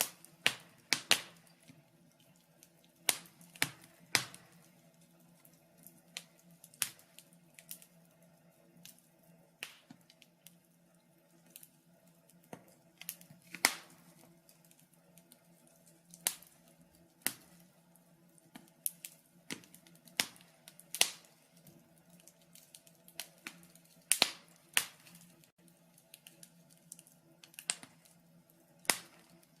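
Wood fire in a fireplace crackling, with irregular sharp pops and snaps, roughly one or two a second, over a faint steady low hum.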